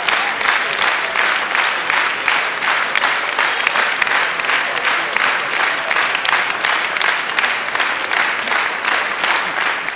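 Circus audience applauding in unison, clapping in time at about three claps a second.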